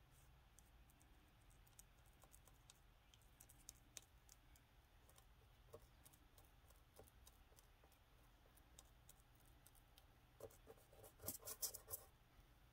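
Near silence, with faint scattered ticks and scratches of a small paintbrush dabbing paint onto textured miniature stucco. A short flurry of louder clicks comes near the end.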